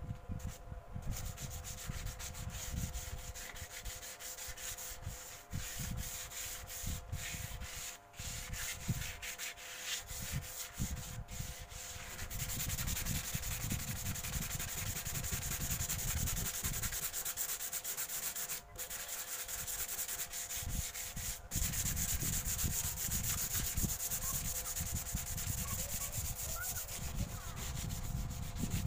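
Hand-sanding a plywood tabletop with a sandpaper block: quick back-and-forth strokes making a scratchy rasp. The strokes come with brief pauses at first and turn steadier and more continuous about halfway through.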